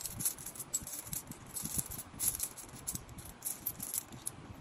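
A heap of loose metal coins clinking and jingling as hands rake and sort through it: a steady run of many small, quick metallic clicks.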